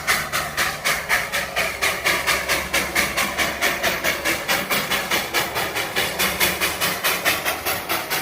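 Darjeeling Himalayan Railway coal-fired steam locomotive chuffing in an even rhythm of about four exhaust beats a second, with a steady hiss of steam underneath.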